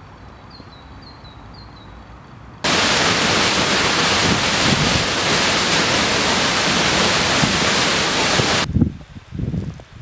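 Waterfall plunging onto rocks into a pool: a loud, steady rush of water that starts abruptly a little over two seconds in and cuts off about nine seconds in. Before it there is only quiet outdoor background with a few faint high chirps. After it, gusts of wind buffet the microphone.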